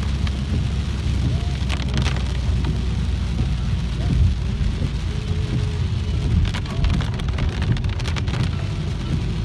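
Rain falling on a moving car, heard from inside over the steady low rumble of engine and road, with bursts of sharper patters about two seconds in and again around seven to eight seconds in.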